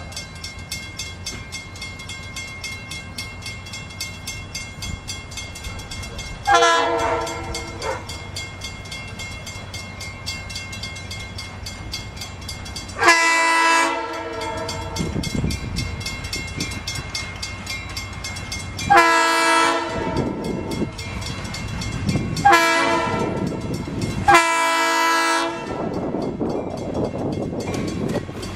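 Diesel locomotive horn sounding five blasts as the train approaches. The last four (long, long, short, long) match the grade-crossing signal. The rumble of the engine and wheels grows louder near the end.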